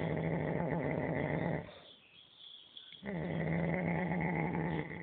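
A cow snoring: a long, rattly snore with a steady low hum fades out about a second and a half in. After a short pause a second long snore starts about three seconds in and drops in level near the end.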